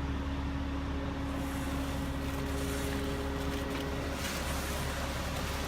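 Concrete truck's engine running steadily during the pour, a low rumble with a steady mechanical whine over it.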